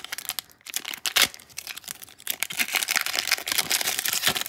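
Foil wrapper of a Pokémon trading card booster pack crinkling and tearing as it is ripped open by hand: an irregular crackle of many small clicks, with a sharp rip about a second in and denser crinkling through the second half.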